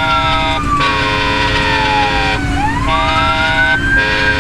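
Fire engine siren wailing, its pitch rising and falling slowly, with horn blasts sounding over it about four times, alternating between two pitches, above a low rumble.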